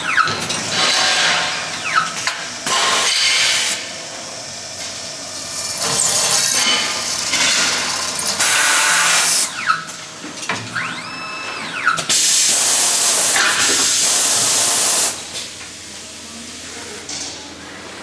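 Automatic CNC machine processing aluminium mosquito-net frame profiles, running through its work cycle. Loud bursts of machining noise come several seconds apart, with sharp clicks in between. A motor whine rises, holds and falls about eleven seconds in.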